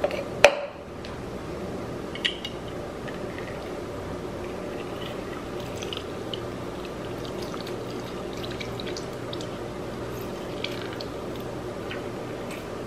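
Lime juice dripping from a handheld metal lime squeezer into a stainless steel cocktail shaker. There is a sharp metal knock about half a second in and a smaller one about two seconds in, then a low, even background with faint drips and ticks.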